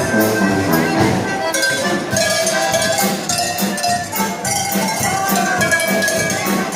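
Hand-rung cowbells played as a musical act: repeated strokes, each ringing on, with the pitch changing from stroke to stroke like a tune.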